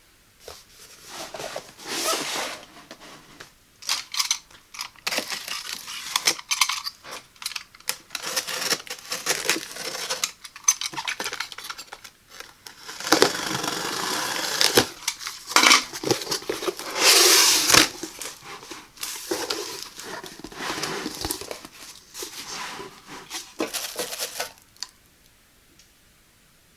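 A toaster oven's cardboard box and packaging being opened and handled by hand: irregular rustling, scraping and knocking, with sharper clicks in between, stopping a couple of seconds before the end.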